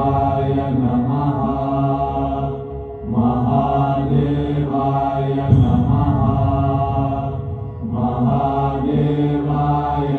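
Chanted mantra with musical accompaniment: voices intone long phrases over a low, steady drone. The chant breaks briefly twice, about three seconds in and again about eight seconds in.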